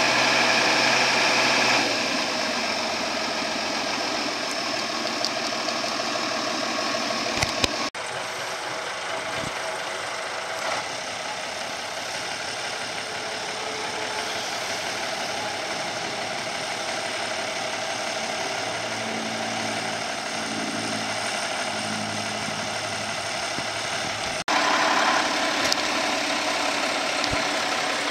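1977 International 986 tractor's six-cylinder diesel engine running steadily as the tractor is driven slowly. The sound changes abruptly about 2, 8 and 24 seconds in.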